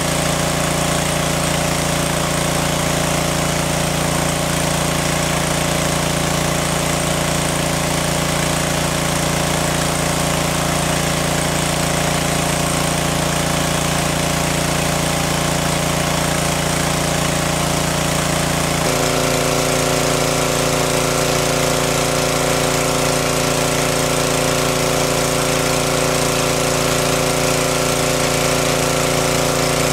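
Engine of a water pump running steadily while it draws water out of a lake. Its note shifts abruptly about two-thirds of the way through, then holds steady again.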